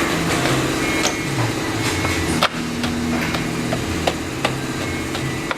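A car engine running, its low hum shifting slightly in pitch, with scattered sharp clicks and knocks.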